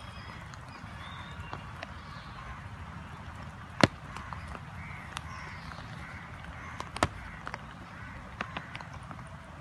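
Rain falling steadily, with scattered sharp taps of drops close to the microphone, two of them much louder, about four and seven seconds in. Faint bird calls come through in the background.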